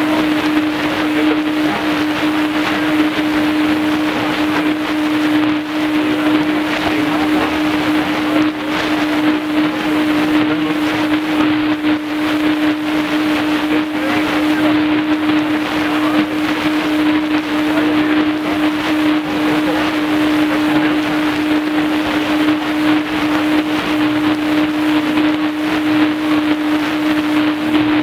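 Shortwave static hiss from a Tecsun PL-310ET portable receiver, with a steady low-pitched tone held throughout and no programme coming through.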